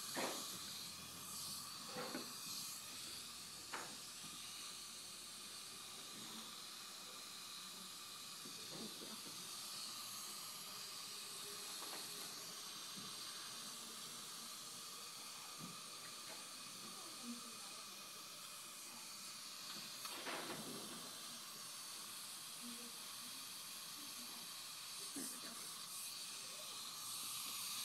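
Steady hiss of a dental suction line running, with a few faint clicks of instruments being handled.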